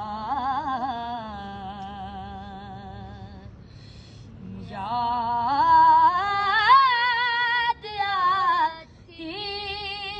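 A boy singing a naat unaccompanied, drawing out long held notes with vibrato. One phrase fades out about three seconds in, a new phrase climbs in pitch from about five seconds in, and another long note is held near the end.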